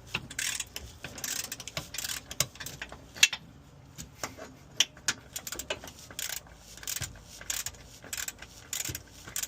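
Socket ratchet clicking in short, irregular spells as a wheel-hub bolt is backed out, with metal clinks from the wrench and socket, the sharpest about three seconds in.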